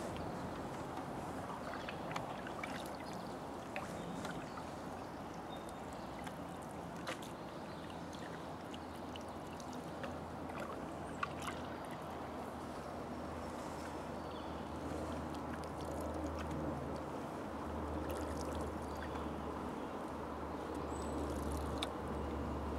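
Canoe paddles dipping and pulling through calm river water, with dripping and light swishing, a few small clicks and knocks, and a low rumble that comes in about halfway through.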